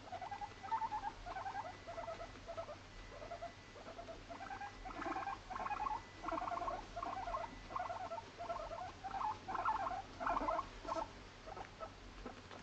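Abyssinian guinea pig purring in a series of about a dozen short pulsed bursts while it is stroked on the head.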